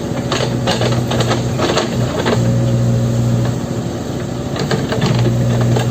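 Backhoe loader's diesel engine running steadily, with irregular metallic knocks and clatter in bunches through the first half and again near the end.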